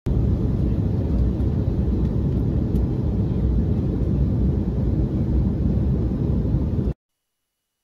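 Jet airliner cabin noise in flight: a steady low rush of engines and airflow heard from inside the cabin, cutting off abruptly about seven seconds in.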